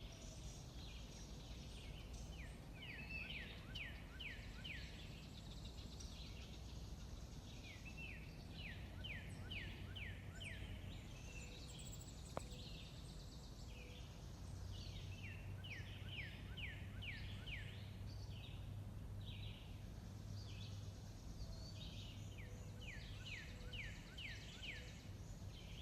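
Birds singing: one songbird repeats a phrase of quick, sharply falling notes about every six seconds, with fainter bird calls in between over a low steady rumble.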